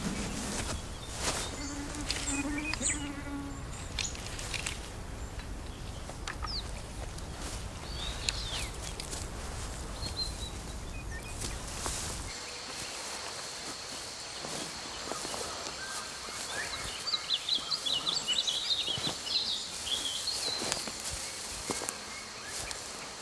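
Summer forest ambience with insects buzzing. A low rumble in the first half cuts off abruptly about halfway through. After that a steady high insect trill continues, with clusters of short, high chirps.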